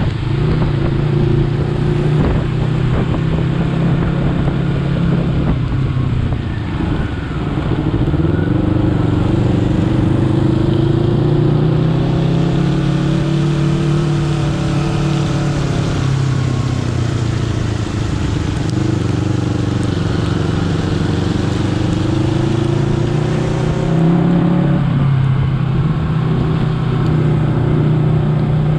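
Honda CBR250RR motorcycle engine running while being ridden, the revs rising and falling several times with throttle and gear changes, over a steady rushing hiss.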